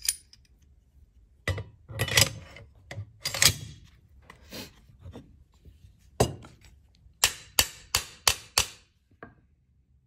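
A Galil rifle's bolt carrier is worked in the steel receiver with scattered metal clanks, then struck with a mallet in a quick run of about six sharp taps, some three a second, to drive it forward. The bolt is tight while being force-matched and still stops short of battery.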